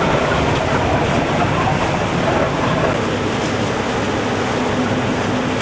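Steady rush of wind and choppy sea heard from aboard a moving boat, with the boat's engine running underneath; a low engine hum comes through more clearly near the end.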